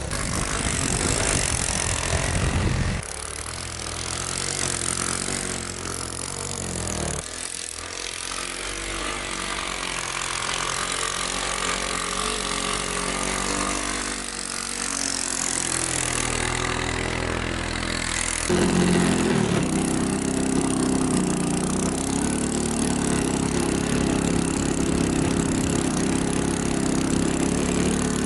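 Three-wheeler ATV engine running and revving while riding, its note rising and falling, getting louder about two-thirds of the way through.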